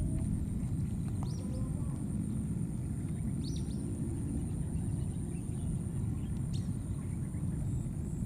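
Outdoor natural ambience: a steady low rumble, a continuous thin high insect drone, and a few short high chirps, about a second and three and a half seconds in.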